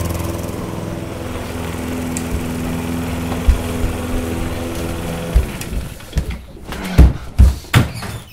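Lawn mower engine running steadily, then stopping about five and a half seconds in, followed by several loud thumps.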